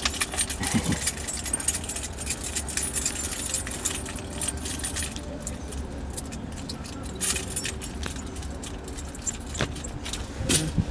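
A bunch of keys jangling and clinking, with many small handling clicks, as the ignition key is sought in a Robinson R22 cockpit before engine start. The clatter is dense at first, thins out past the middle and picks up again near the end.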